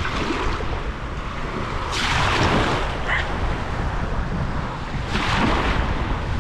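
Small surf waves washing through ankle-deep water, with two louder washes about two seconds in and again about five seconds in. A steady low wind rumble on the microphone runs underneath.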